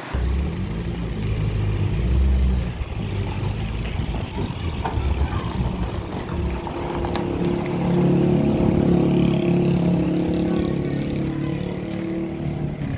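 Truck engine running under heavy load, swelling louder about two seconds in and again from about eight seconds in.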